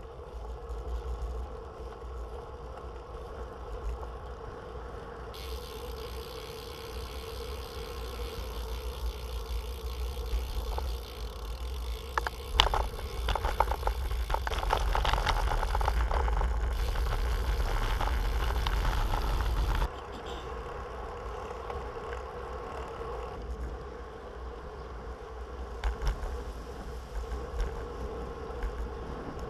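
Road bike riding along, with steady wind rumble on the bike-mounted camera's microphone and a thin steady hum. Around the middle the tyres rattle and knock over cobblestones, which is the loudest part.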